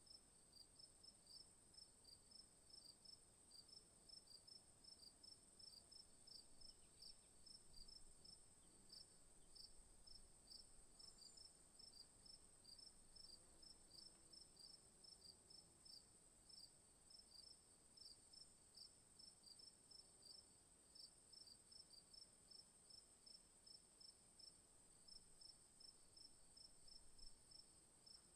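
Faint chorus of night insects, crickets: one steady high trill, with a second insect chirping in a regular, unbroken series of short pulses.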